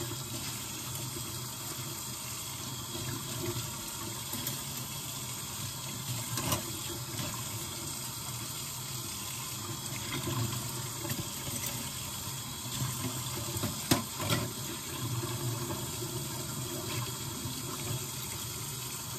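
Kitchen tap running steadily into a sink during hand dishwashing, with a few clinks of dishes and utensils, the sharpest about two-thirds of the way through.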